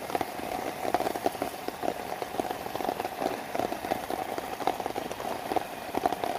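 Heavy rain pattering, a dense irregular run of drops hitting a surface.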